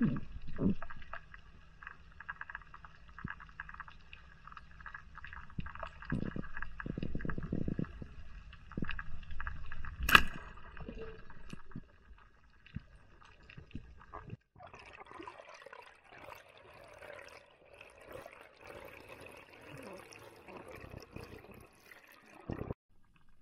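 Underwater ambience with a faint steady crackle and whine, broken about ten seconds in by one sharp crack of a speargun firing. From about fourteen seconds a denser rush of bubbling water takes over and cuts off shortly before the end.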